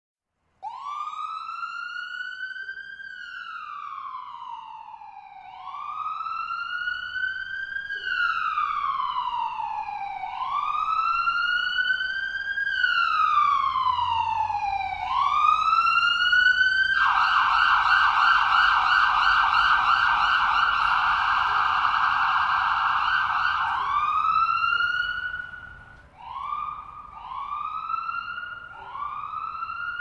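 American ambulance siren approaching from a distance, growing louder: a slow wail rising and falling about every two and a half seconds, switching to a rapid yelp for several seconds past the middle, then back to shorter rising wails near the end.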